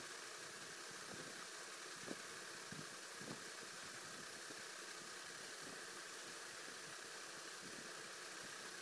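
Faint, steady hiss of background noise, with a few soft ticks about two to three and a half seconds in.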